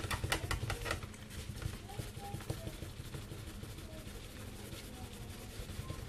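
Paper tissue scrubbed quickly back and forth against a fridge door to rub off permanent marker ink, a rapid run of scratchy strokes, strongest in the first second and fainter after, over a low steady hum.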